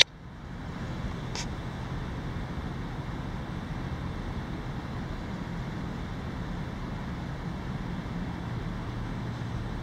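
Steady low background rumble with a faint hum, and a single faint click about a second and a half in.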